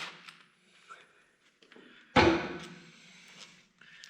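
One loud, sharp clunk of metal on metal about two seconds in, dying away quickly, set among faint clicks and taps of hand tools being handled.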